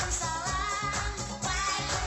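A pop-style song with a singing voice over a steady beat and bass line.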